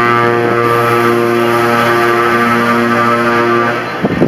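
A passing Scania truck's air horn held in one long, steady blast, cutting off about three and a half seconds in.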